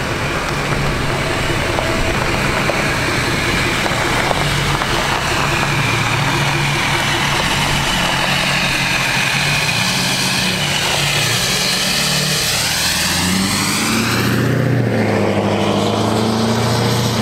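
Ford Super Duty pickup truck driving past and pulling away, its engine running steadily with low tones that shift in pitch as it goes, and a rising and falling note about two-thirds of the way through.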